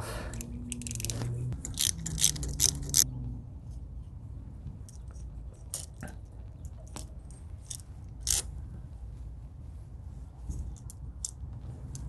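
Metal clicks and clinks of a wrench and bolt on a garage door extension-spring pulley as it is taken apart. Several sharp clicks come close together in the first three seconds, then single clicks every second or two.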